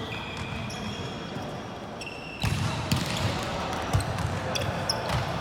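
Indoor volleyball play: the ball is struck and bounces with sharp smacks, three loud ones in the second half. Short high squeaks, typical of sneakers on a gym court, run between the hits, over the chatter of players.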